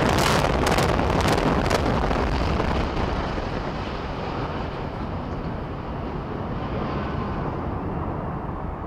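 Explosive charges cracking in quick succession for the first couple of seconds of a building implosion, then a long rumble as the 16-story reinforced-concrete hotel collapses, slowly dying down.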